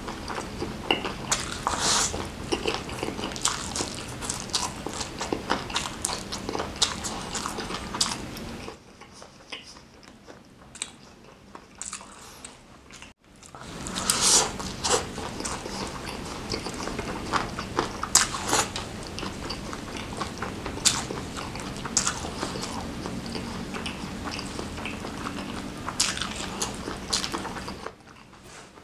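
Close-miked eating: wet chewing of mouthfuls of spicy noodles, then, after a quieter stretch and a cut about halfway through, bites into crispy smashed fried chicken (ayam geprek) with crunches and chewing.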